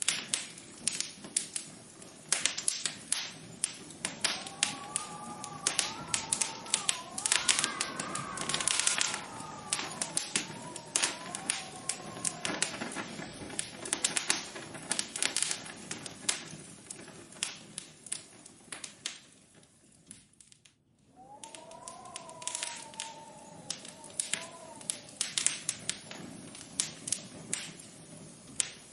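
Rapid, irregular tapping and clicking throughout, with a soft wavering tone gliding up and down twice, dropping briefly quiet a little after the middle.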